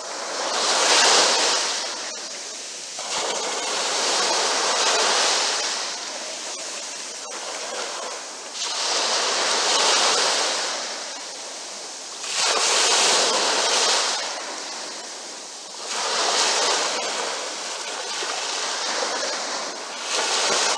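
Small ocean waves breaking at the shoreline and washing up the sand. The rushing of foamy water swells and fades about six times, one surge every three to four seconds.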